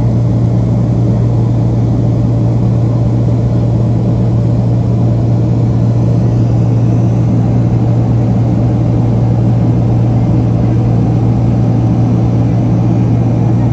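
Boeing 767-300ER jet engines heard from inside the cabin by the wing during the climb after takeoff: a loud, steady drone with a strong low hum that holds unchanged.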